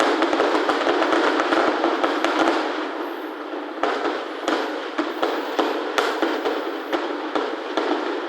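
Fireworks in a closing barrage: many shells bursting in quick succession into a dense, continuous crackle, loudest in the first couple of seconds, with single sharper bangs standing out about four and six seconds in.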